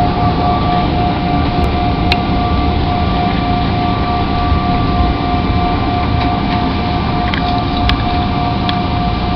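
Steady cabin noise of a jet airliner in flight: a constant rumble and hiss with a steady high-pitched tone on top, and a few faint clicks.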